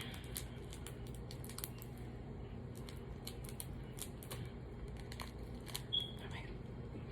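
Faint crinkling and scattered small clicks of a plastic packet of salt-and-lemon chili powder being handled and opened. A short thin squeak comes about six seconds in.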